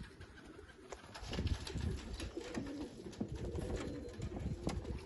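Racing pigeons cooing on a loft roof, over a steady low rumble, with a few sharp clicks.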